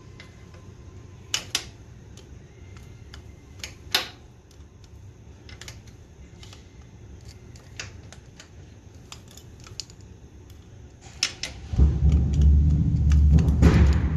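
Scattered light metallic clicks and taps of a wrench and small parts being handled. About twelve seconds in, a loud low rumble starts and keeps going.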